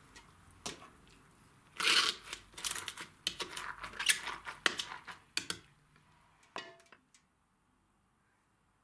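Shredded cabbage salad being pushed through a plastic funnel into a glass jar and tamped down with a wooden pestle: irregular wet crunching and rustling with light knocks, stopping about seven seconds in.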